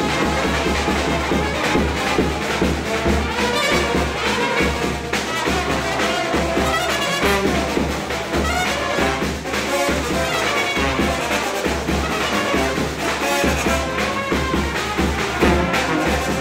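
Serbian brass band music: trumpets and other brass horns playing a lively tune over a steady low beat.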